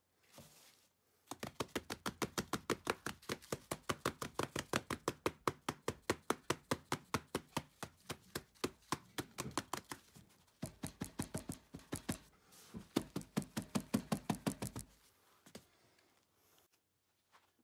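A foam mold full of wet concrete shaken by hand, knocking rapidly and evenly at about five knocks a second, with a short break midway. The shaking settles the concrete in the mold.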